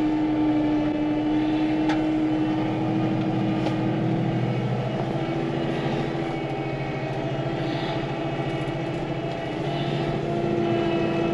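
Farm tractor engine running steadily as the tractor moves off to push snow. Its steady droning tone rises slightly about halfway through.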